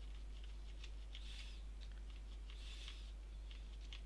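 A steady low hum, with faint scattered clicks and soft hissy swells about every second and a half.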